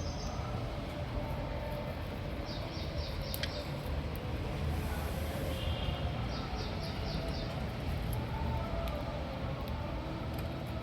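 Small pet parrots chirping in short, quick runs of high notes, twice in the middle, over a steady low rumble.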